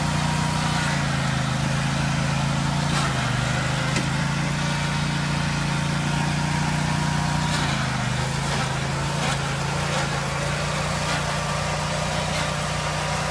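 Riding lawn mower's small engine running steadily, its pitch dipping briefly a couple of times as if under load.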